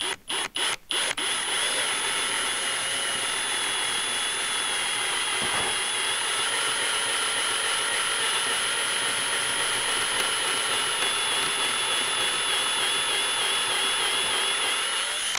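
Power drill with an 11/64-inch twist bit boring a pilot hole through a ski's topsheet into its core. It is started in a few short bursts, then runs steadily for most of the time and stops suddenly at the end.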